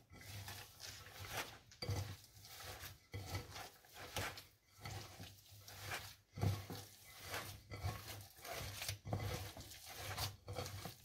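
Hands kneading minced beef mixed with onion, parsley and breadcrumbs in a glass bowl: irregular soft rubbing and squishing strokes, about one or two a second, over a steady low hum.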